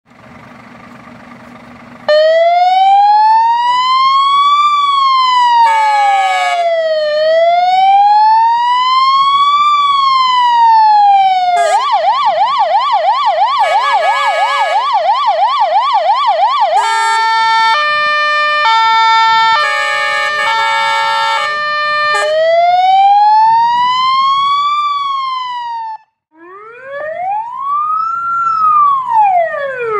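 Fire engine sirens cycling through their tones. The Scania P450 XT fire engine idles for about two seconds, then its siren runs a slow rising-and-falling wail, a fast yelp, and a stepped hi-lo two-tone, then wails again. After a sudden cut near the end, the older Star 12-157 fire engine's siren sweeps up and down once.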